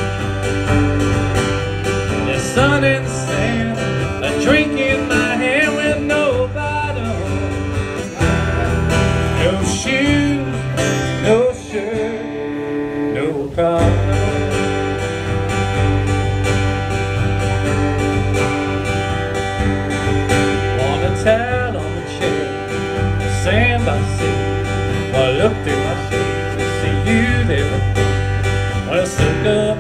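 Live band music: a guitar-led instrumental passage over a steady bass line. The bass drops out briefly about twelve seconds in.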